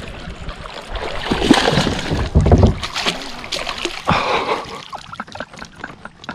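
A hooked bass thrashing and splashing at the water's surface as it is netted beside a kayak, in irregular surges of splashing. Short clicks and knocks follow near the end as the net is brought aboard.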